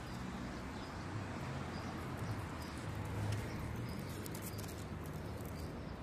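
Outdoor background noise with a steady low rumble, a few faint short high chirps and some light clicks.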